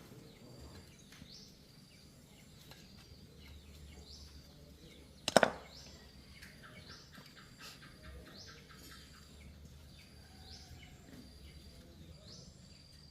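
Faint background with a bird chirping about once a second, broken by a single sharp knock about five seconds in and a short run of quick ticks just after it.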